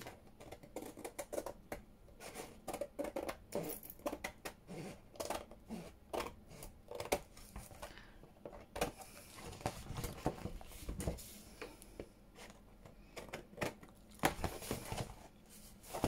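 Large scissors snipping through layered paper and card, a long run of irregular short cuts as overhanging collage paper is trimmed from the edge of a board, with a softer stretch of paper rustle part-way through.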